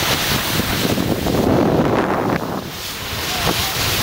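Wind buffeting the microphone with a steady rushing hiss while gliding down a snowy ski slope. It swells to its loudest about two seconds in and then eases off slightly.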